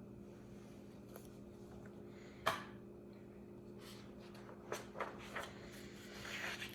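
Faint handling of a paper picture book, as when a page is turned: a few soft clicks and taps, the sharpest about two and a half seconds in, and a short paper rustle near the end, over a steady low hum.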